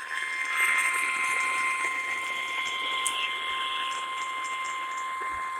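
NOAA Weather Radio 1050 Hz warning alarm tone, one steady unbroken pitch over radio hiss with faint crackles. It is the signal that a warning-level alert, here a flash flood warning, is about to be read.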